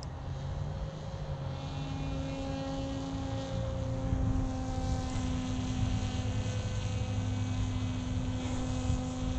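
Electric motor and propeller of a large RC flying wing in flight overhead: a Turnigy Trackstar 780KV brushless motor spinning a 12x4 APC prop, giving a steady drone. Its pitch steps up about a second and a half in and then holds.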